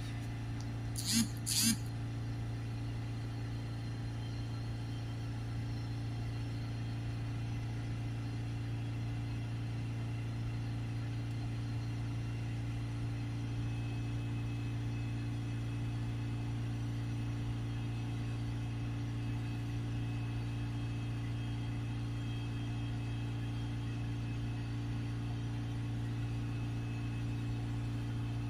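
Mark 7 Ford Transit diesel engine held steadily at its rev limit of just over 3000 RPM, a constant drone, blowing through the freshly cleaned diesel particulate filter. A couple of brief sounds come about a second in.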